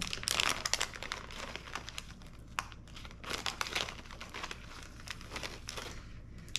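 Thin plastic packaging crinkling and rustling in the hands as strands of waist beads are pulled out of it, an irregular run of crackles.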